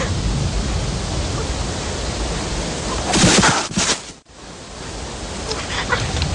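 Steady rush of a fast, rocky mountain stream. It swells louder a little after three seconds in, then drops out for an instant at about four seconds before the rushing resumes.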